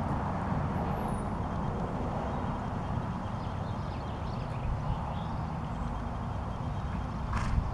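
Outdoor ambience dominated by a steady low rumble, with a few faint bird chirps in the middle and one short sharp hiss-like burst near the end.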